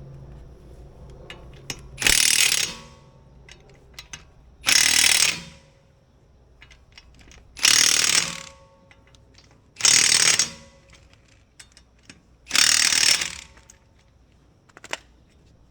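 Impact gun hammering the spare tyre's lug nuts down tight, in five short bursts a few seconds apart, one per nut. Faint clicks of the tool and nuts are heard between the bursts.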